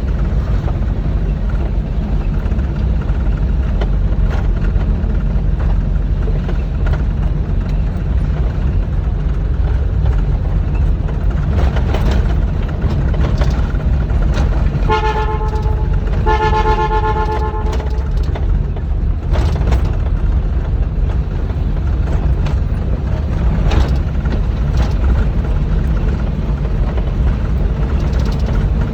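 Combine harvester's diesel engine running steadily with a deep rumble. About halfway through, a horn sounds twice: a short toot, then a longer one.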